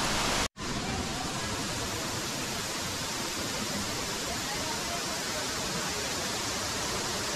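Florence Falls' cascades pouring into the plunge pool: a steady, even rushing of falling water. The sound cuts out for an instant about half a second in.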